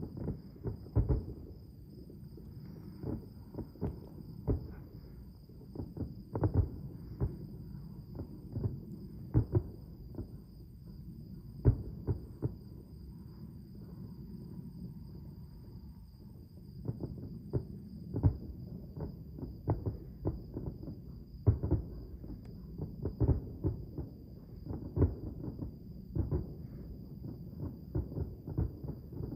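Distant fireworks display: a quick series of dull, low booms at irregular intervals, sometimes several a second, with a few louder single bangs.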